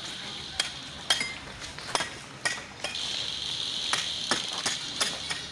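Irregular sharp taps and metallic clinks of a hand tool being worked on a statue under construction, about two a second, some ringing briefly. About three seconds in, a high, steady hiss joins them.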